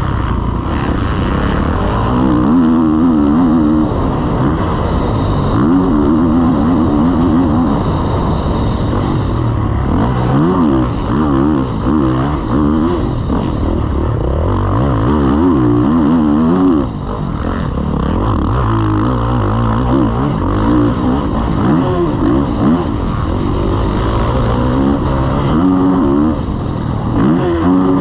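Kawasaki KX450 four-stroke single-cylinder motocross engine heard from on board, revving up and falling back again and again as the rider works the throttle and gears around the track, with a brief dip in level a little past halfway.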